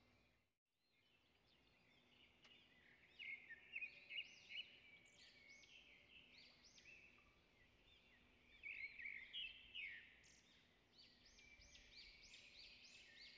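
Faint birds chirping in the background, in quick repeated high notes that come in two clusters, about three seconds in and again around nine seconds in; otherwise near silence.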